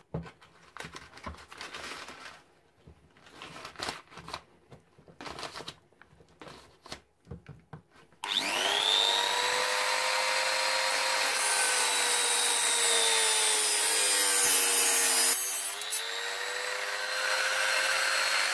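Scattered knocks and clicks as a pistol magazine is clamped into a bench vise. About eight seconds in, a small rotary tool with a cut-off disc starts suddenly with a rising whine and then runs loud and steady, cutting through the magazine's knurled retaining-screw knob, with a brief dip in the whine near the end.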